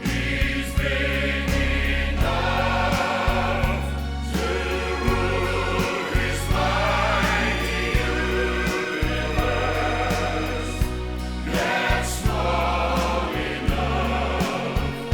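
Southern gospel music: a choir singing with instrumental accompaniment over a steady low bass.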